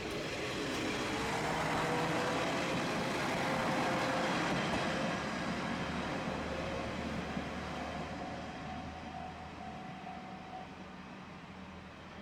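A vehicle passing: a steady rumble with a faint tone that swells to its loudest a few seconds in, then slowly fades away.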